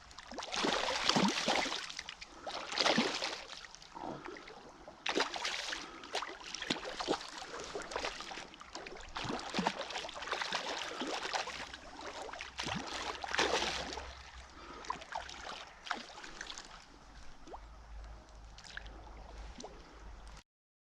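River water splashing and sloshing close by in irregular surges, with small clicks and knocks mixed in; the sound cuts off abruptly near the end.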